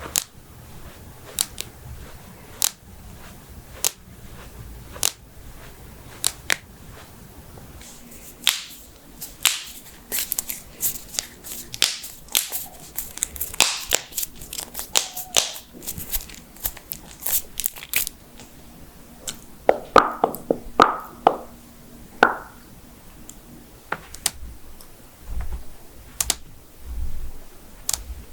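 Human joints being cracked: a series of sharp pops and clicks, about one a second at first, then a dense run of crackling in the middle and a quick string of pops later on.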